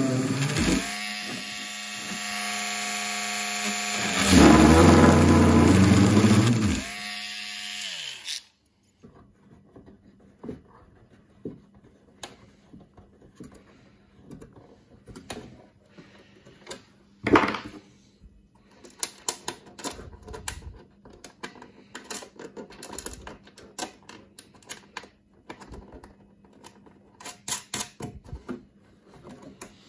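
Rotary multi-tool with an abrasive grinding stone running against a hard plastic turntable dust cover, widening the drilled screw holes. The grinding gets louder between about four and seven seconds in, then the tool winds down and stops about eight seconds in. After that come light clicks and taps, with one sharper click, as a plastic hinge bracket and its screws are handled against the cover.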